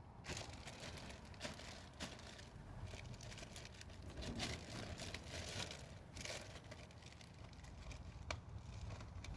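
Hands handling small engine parts during a spark plug and ignition coil change: irregular rustling and crinkling with scattered light clicks.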